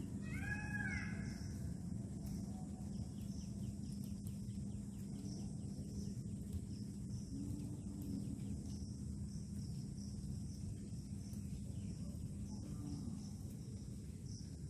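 Woodland ambience: a steady, high insect chirr with a single bird call, crow-like, about half a second in, over a low steady hum and background noise.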